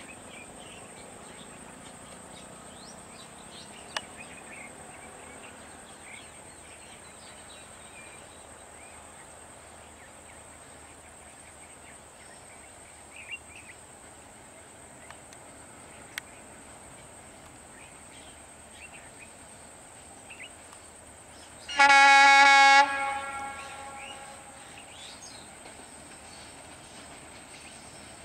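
Diesel locomotive horn sounding a single loud blast of about a second, roughly three quarters of the way through, with a short ring-out after it. Around it, a faint steady background of scattered chirps and a high, even whine.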